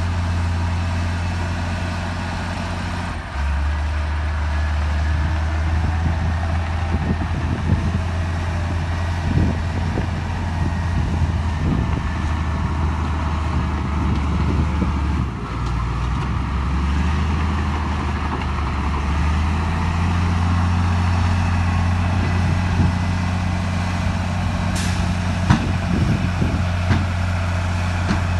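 Heavy diesel earthmoving machine running under changing load, its low engine note stepping down about three seconds in and back up after the middle. Scattered metallic clanks and knocks sound over it, the sharpest near the end.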